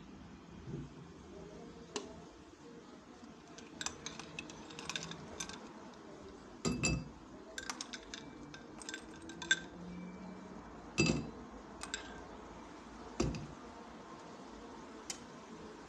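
A metal spoon clinking against a tall glass and the ice cubes inside it as diced fruit is spooned in. The clinks are scattered and irregular, and a few louder ones ring briefly like struck glass.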